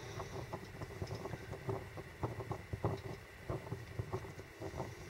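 Freshly lit methanol wick burner in a DIY fuel can under a camp stove, chugging: a faint, irregular run of soft pops and puffs as the young flame sputters, before the burner heats up and goes quiet.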